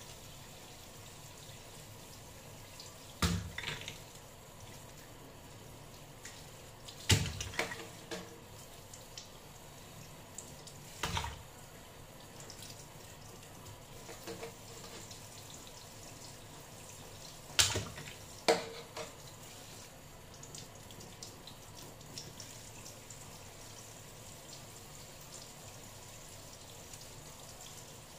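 Kitchen tap running steadily into a stainless steel sink while mussels are cleaned under it. About five sharp clacks come at intervals as the shells are handled, two of them close together about two-thirds of the way in.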